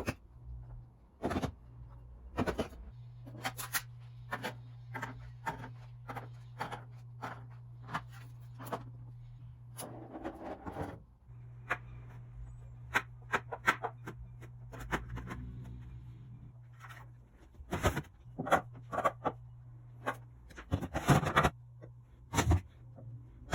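Irregular clicks, knocks and rubbing of containers and food packages being handled and set down while a refrigerator is organized, over a steady low hum.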